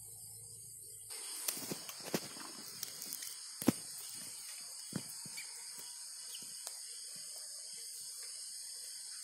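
Sticks of old wood and bamboo knocking and clattering as they are pulled aside by hand: about a dozen sharp knocks, the loudest a little over three and a half seconds in, thinning out after about five seconds. A steady high-pitched chirring of night insects runs underneath.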